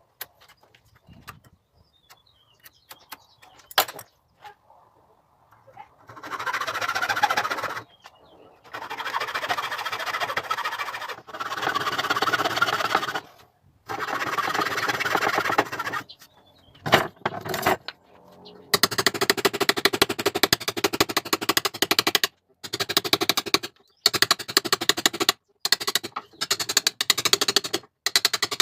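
Woodworking power tool cutting pallet wood in several short runs of dense, rapid rattling, then a longer stretch of rapid rattling broken by short pauses. A few knocks of wood being handled come before.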